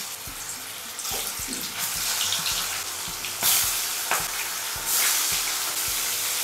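Pieces of turmeric-and-salt-rubbed aar catfish sizzling as they are dropped one at a time into smoking-hot mustard oil in a kadai. The hiss jumps louder several times as more pieces go in, with sharp pops and spits from the frying fish.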